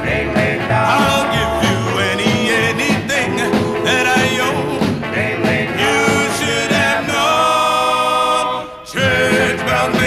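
A 1950s doo-wop recording: a vocal group with lead voice, tenor, baritone and bass singing in harmony over a rock-and-roll band backing. About seven seconds in, the voices hold one long chord that breaks off briefly before the song goes on.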